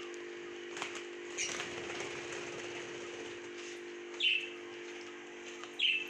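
Young budgerigars giving two short, sharp chirps, one about four seconds in and one near the end, with a few soft clicks from pecking at greens in the first second and a half. A steady low hum runs underneath.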